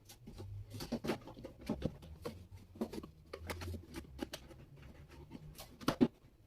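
Scattered light clicks, taps and rustles of packaging and parts being handled while a sewing machine is unboxed, with a couple of louder knocks near the end.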